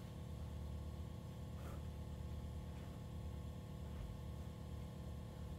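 Quiet steady low hum, with two faint soft touches about a second and a half in and again near four seconds as a glued foam block is pressed by hand onto a seat foam cushion.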